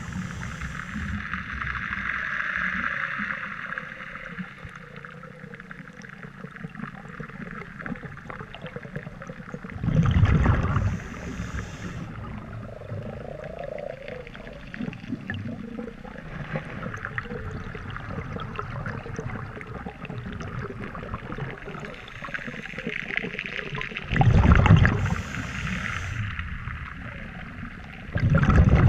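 Scuba regulator breathing heard underwater: drawn-out inhalations with a low moaning tone, broken three times by loud rumbling rushes of exhaled bubbles, about ten seconds in, a little before the end, and again right at the end.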